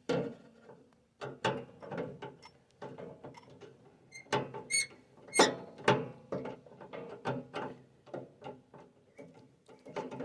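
Flat screwdriver turning the terminal screw on an electrical panel's neutral bar to clamp a neutral wire: an uneven run of small metal clicks and scrapes.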